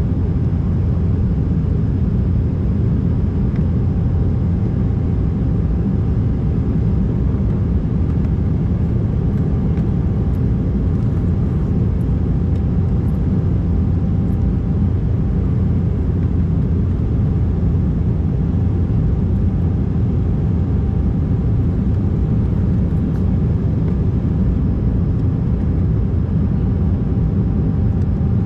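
Cabin noise inside an Embraer 190 airliner in flight: the steady drone of its GE CF34-10E turbofan engines and airflow, heavy in the low end, with a faint steady whine over it.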